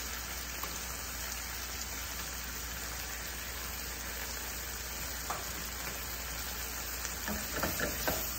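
Sliced sausage, mushrooms and peppers frying steadily in a stainless-steel pan, with sauce being ladled in. A light knock about five seconds in and a few more near the end come from the utensils and pan.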